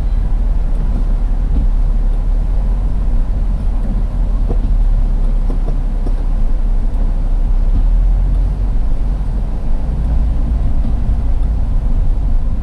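Steady low rumble of a car driving, heard from inside its cabin: engine and road noise.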